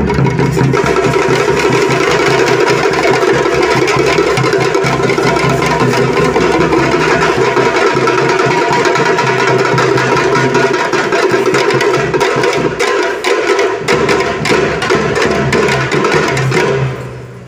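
Parai frame drums beaten with sticks in a fast, dense rhythm of sharp cracks, with a large barrel drum underneath. The drumming stops near the end.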